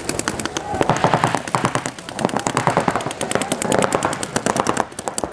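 Paintball markers firing in rapid, overlapping streams of shots, many shots a second.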